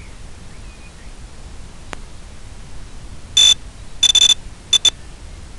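Electronic beeper sounding high-pitched beeps over a steady hiss: one beep, a longer beep, then two quick short beeps.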